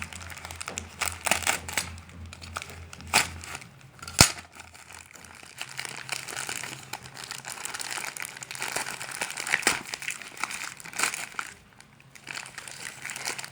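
Parcel packaging crinkling and rustling as it is handled and opened by hand, with irregular clicks and one sharp click about four seconds in.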